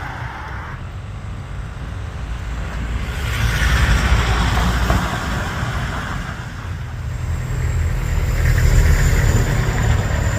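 Motor vehicles passing close by: a low engine rumble with tyre and road noise that swells twice.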